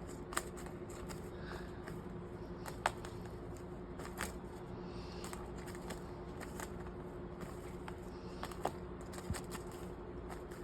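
A pet bird working at its nest, giving a few scattered sharp clicks and light rustles, over a steady low hum.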